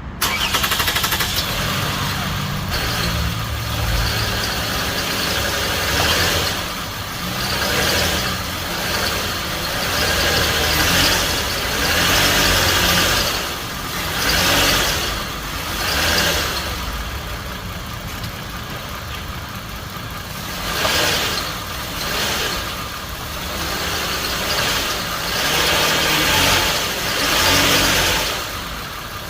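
Car engine running at idle, with a steady low rumble and a wash of noise that swells and fades every couple of seconds.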